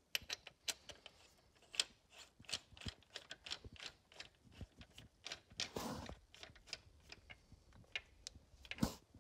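Half-inch-drive ratchet with a 10 mm Allen socket clicking in irregular runs as a new 12.9 head bolt is run down into the cylinder head. Scattered metal clinks from the tool and bolt come through, with a sharper click near the end.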